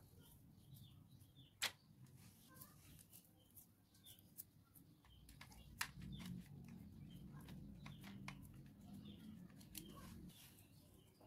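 Near silence: faint scattered clicks and taps of hands handling a small terracotta pot and packing clay powder into it, with faint bird chirps in the background.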